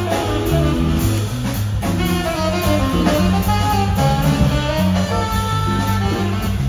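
Live band playing a blues: saxophone, electric guitars and drums over a stepping bass line.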